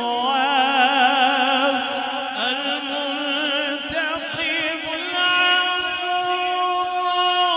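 Solo male voice singing a naat (Urdu-Punjabi devotional praise poem), amplified through a microphone. He sings a wavering, ornamented run of notes, then about five seconds in holds one long steady note.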